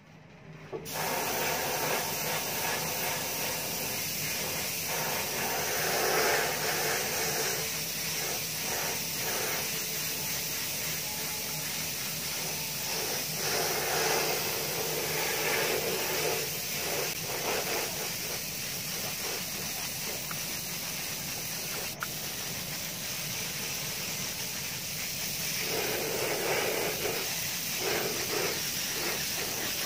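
Gravity-feed paint spray gun hissing steadily with compressed air as it sprays paint, the hiss swelling at moments as the spray changes.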